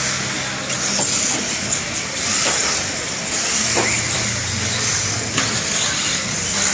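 Electric RC stock trucks racing on an indoor dirt track: a high-pitched motor and drivetrain whine that swells and fades as the trucks pass, with a few sharp knocks.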